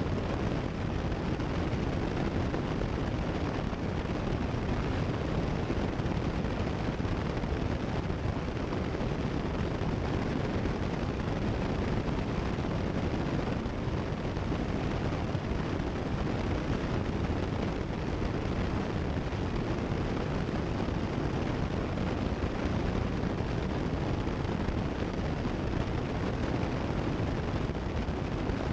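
Cessna 172 Skyhawk's engine and propeller in cruise, heard as a steady, even drone through the headset intercom audio.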